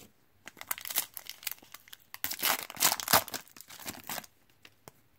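Foil wrapper of a 2014 Panini Prizm football card pack being torn open and crinkled by hand: a run of sharp crackles and rips that is loudest around the middle and stops shortly before the end.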